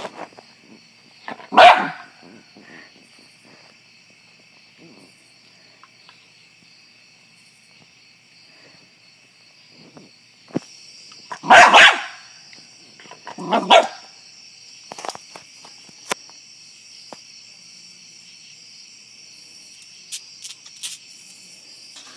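Small curly-coated dog barking: one bark about two seconds in, then two more close together a little past the middle. Steady insect chirping runs behind.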